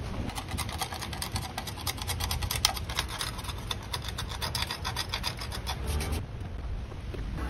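Hand sanding of a school bus's painted steel roof with folded sandpaper: rapid back-and-forth scratchy rubbing strokes that stop about six seconds in, scuffing the metal around a removed marker-light hole before primer goes on.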